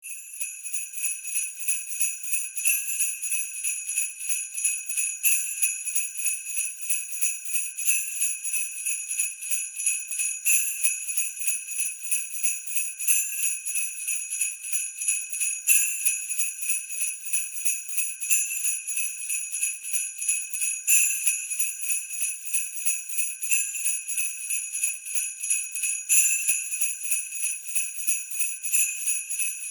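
Sleigh bells shaken in a steady, even rhythm, a bright continuous jingle with a stronger accent about every two and a half seconds.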